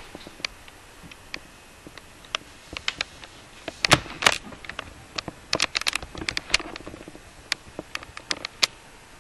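Handling noise from the webcam being moved about over a cluttered art table: scattered irregular clicks and light knocks, with a couple of louder knocks about four seconds in.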